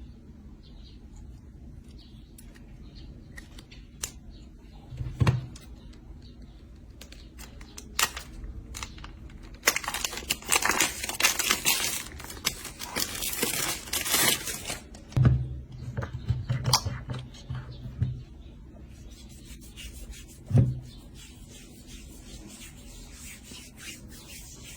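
Packaging being handled and torn open, with scattered clicks and a sustained stretch of rustling and tearing about ten to fourteen seconds in. Several dull thumps from objects being set down or knocked.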